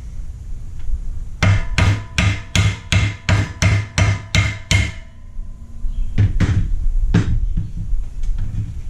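Hammer blows on a metal plate laid over a bearing race, driving the race into the Honda Ruckus frame: a quick run of about eleven strikes, roughly three a second, with a metallic ring. After a short pause come a few more blows.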